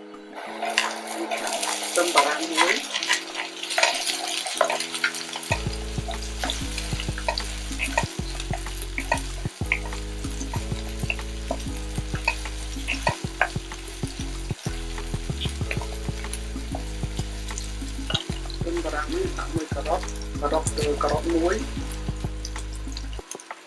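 Sliced onions sizzling in hot oil in a wok, stirred with a wooden spatula that clicks and scrapes against the pan. The sizzle starts about a second in, and a busier burst of sizzling and stirring comes near the end as julienned carrots go in. Background music with a steady bass line plays underneath.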